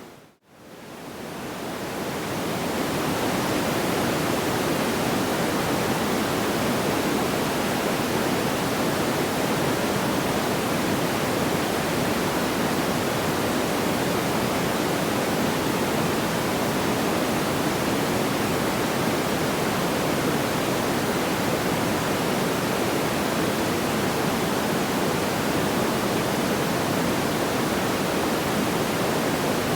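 Steady, even rushing noise with no separate crackles or pops. It drops out briefly just after the start and fades back in over the next two seconds or so.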